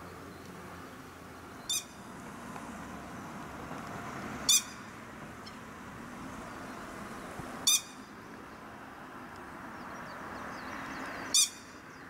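Grey-headed lapwing giving four loud, short calls, each a single note about three seconds apart, over steady background noise.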